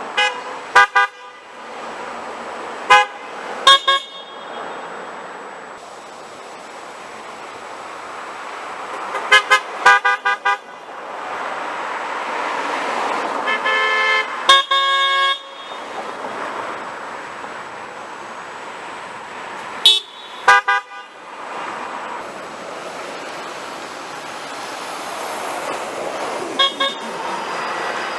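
Car horns from passing traffic honking again and again: clusters of short toots with one longer blast about halfway, over the rush of cars that swells and fades as they pass. The honks are drivers answering a protest sign that asks them to honk.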